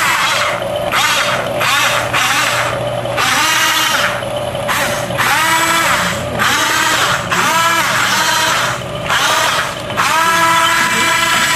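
Small electric drive motors and gearboxes of a tracked RC toy crawler whining, throttled on and off about a dozen times; each burst rises in pitch as the motors spin up and drops away as they stop.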